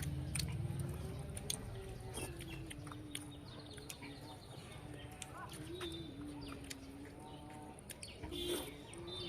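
Scattered short clicks and taps of eating by hand from plates, with birds chirping briefly now and then in the background. A steady, slightly wavering low hum runs underneath throughout.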